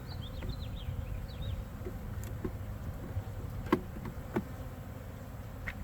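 Honey bees buzzing over an open hive, a steady hum. A few light clicks or knocks sound over it; the loudest comes a little past the middle.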